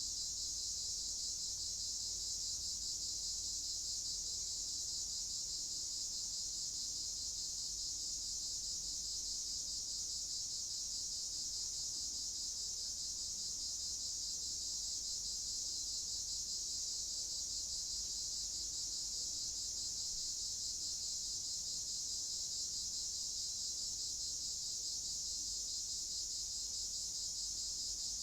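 Night chorus of many crickets chirping steadily without a break, a dense high-pitched shimmer, over a faint low rumble.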